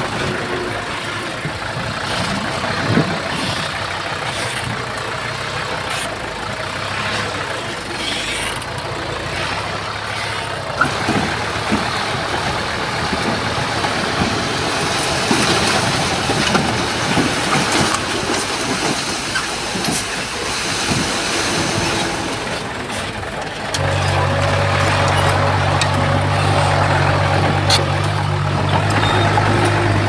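Bulldozer's diesel engine running steadily, with scattered metallic clanks and knocks. A little before the end a deeper, louder engine hum sets in.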